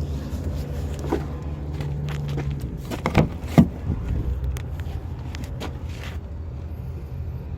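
A few sharp clicks and knocks from handling the parts of a car's interior, the loudest about three and a half seconds in, over a steady low rumble.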